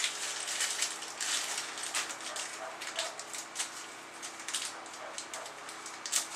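Small screws and door-latch hardware being handled: a run of light clicks, rattles and rustling.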